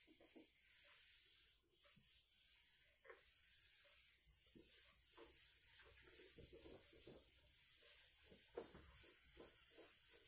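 Faint swishing of a handheld whiteboard eraser rubbed across a whiteboard in many quick back-and-forth strokes, wiping off marker writing.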